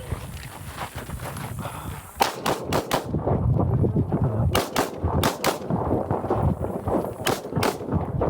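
Glock 19 9 mm pistol firing in quick pairs: about five double-taps, two shots a fraction of a second apart in each, starting about two seconds in after a short quiet stretch of the draw.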